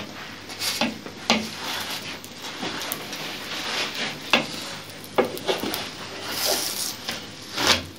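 Wooden spatula scraping and knocking on a large metal griddle pan while pressing and turning a frying msemen flatbread. Brief strokes come every second or so, the last one the loudest, over a low steady sizzle.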